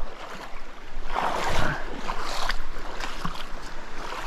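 Shallow river water sloshing and splashing around the legs of someone wading through a rapid, in uneven surges over the steady rush of the current.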